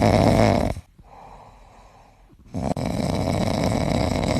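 Suzuki Futura making a strange rough, rasping buzz as soon as the ignition is switched on. The buzz stops about a second in, is quiet for under two seconds, then starts again and cuts off abruptly.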